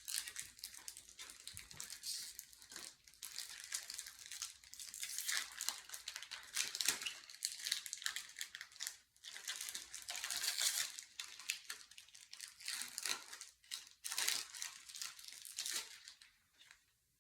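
A Pokémon booster pack's foil wrapper crinkling and tearing as it is opened, a dense run of crackles that stops shortly before the end.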